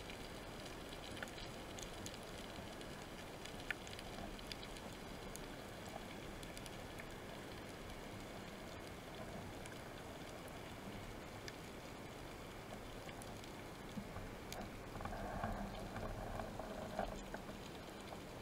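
Underwater ambience on a reef, heard through a camera housing: a steady faint hiss full of scattered tiny crackles and clicks. About fifteen seconds in, a louder muffled rustle lasts for a couple of seconds.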